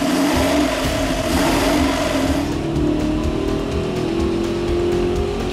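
Ford Racing 347 cubic-inch small-block V8 running on an engine dynamometer. Its engine speed climbs steadily through the second half, as in a dyno pull.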